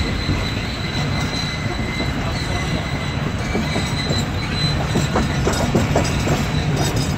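Passenger train coaches running over the rails: a steady wheel rumble with a thin, high wheel squeal held throughout, and a quick run of sharp track clicks from about four and a half seconds in.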